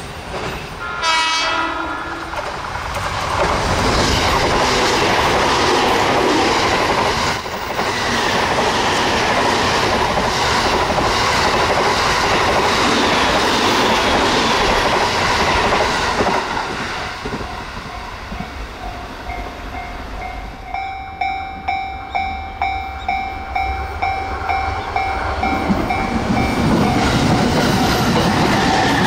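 Electric commuter train sounds a short horn blast, then passes at high speed with a loud rush of wheel and running noise lasting over ten seconds. Afterwards a steady ringing tone pulses about twice a second, and the running noise swells again near the end.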